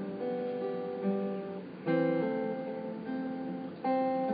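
Acoustic guitar strumming three chords about two seconds apart, each left to ring out.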